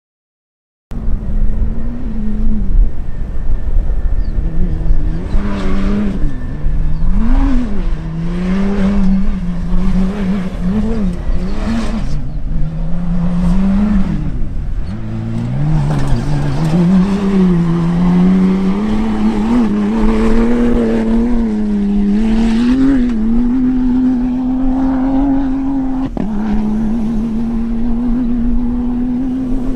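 Mini JCW Rally 3.0i rally-raid car's turbocharged straight-six engine, starting about a second in, revving up and down repeatedly as it is driven hard over sand, with tyre and sand noise. Toward the end the revs hold a steadier, slowly rising note.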